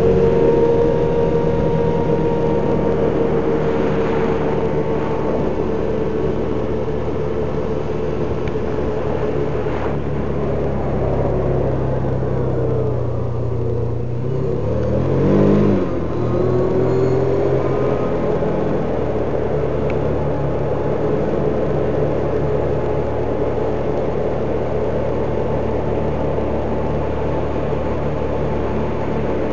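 Can-Am Commander XT 1000 UTV's V-twin engine running under way at a steady speed. About halfway through it slows, then revs up briefly before settling back to cruising.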